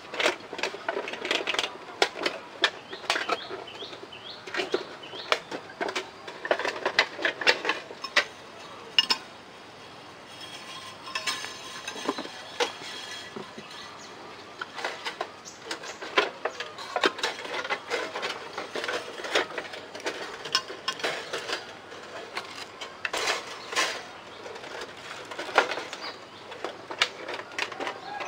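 Shiny plastic sheeting crinkling and rustling as it is handled and bound with thin wire: irregular crackles and small clicks, easing off for a few seconds in the middle.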